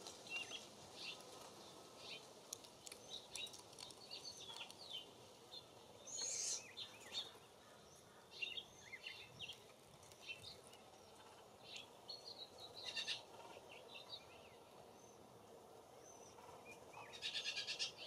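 Small songbirds calling: many short, high chirps and twitters scattered throughout, with a harsh, rapid chatter about a second before the end.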